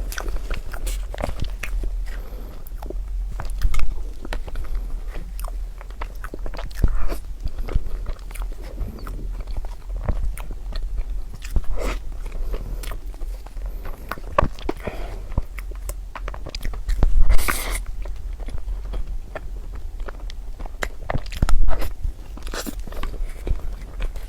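Close-miked eating of crunchy food: repeated bites and crackling chews in an irregular rhythm, with a few louder crunches along the way.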